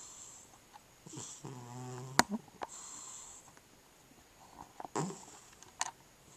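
Cat snoring: a run of wheezy breaths about a second apart, one with a low buzzing snore about two seconds in. A few sharp clicks are mixed in, the loudest just after the buzzing snore.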